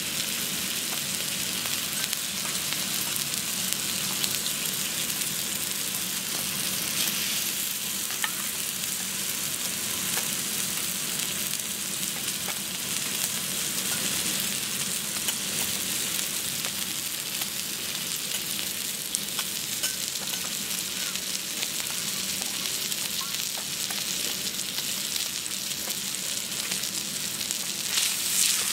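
Thick marbled wagyu beef steak sizzling steadily on a hot teppanyaki steel griddle, fat spitting in small crackles. Near the end a metal spatula moves the steak and the sizzle briefly gets louder.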